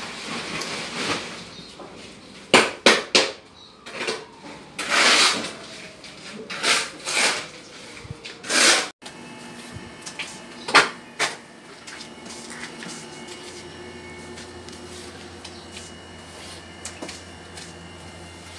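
Rough scraping strokes of a tool working wet cement mortar on a concrete floor, about eight short strokes over several seconds. After a sudden break, two more scrapes from plastering at the wall, then a steady low hum.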